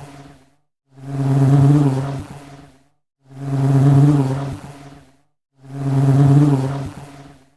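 Honey bee buzzing, swelling up and fading away as if flying past the microphone, about every two and a half seconds: the tail of one pass and then three more, in an identical repeating loop.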